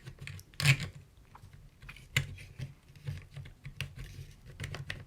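Tripod parts being handled and fitted together by hand: irregular small clicks and taps, one louder knock just under a second in.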